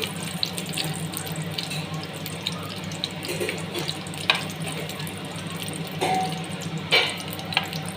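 Dried red chillies frying in oil in a kadai: a steady sizzle over a low hum, with a few sharp clinks of the spatula against the pan, the loudest about four and seven seconds in.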